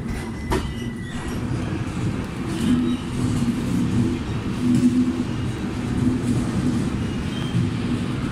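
Passenger train coach rolling slowly along a station platform, heard from the coach: a steady low rumble of wheels on rail with a wavering hum, and a few sharp clicks in the first second.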